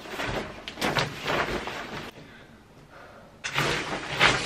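Clear plastic suitcase protector crinkling and rustling as it is pulled and fitted down over a hard-shell suitcase, in scratchy bursts with a short lull in the middle and the loudest handling near the end.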